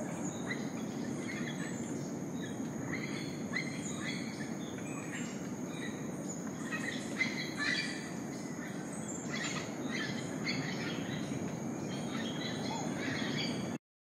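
Rainforest ambience: many birds making short calls and chirps over a steady, high-pitched insect drone and a low, even rushing background. It cuts off suddenly just before the end.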